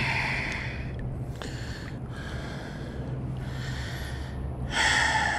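A man breathing hard close to the microphone, a string of breaths about one a second, the loudest near the end.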